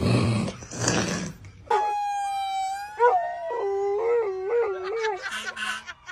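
A dog howling in long, wavering notes at a passing fire truck's siren, which is heard along with it. The howling starts about two seconds in, after a couple of short noisy bursts.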